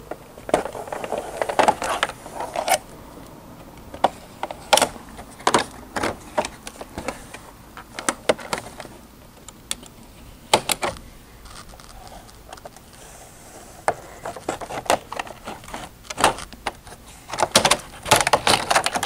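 Utility knife scoring down through a vinyl siding outside-corner trim piece, with short scraping strokes and scattered sharp clicks and snaps of the thin plastic as the cut strip is flexed and pulled away.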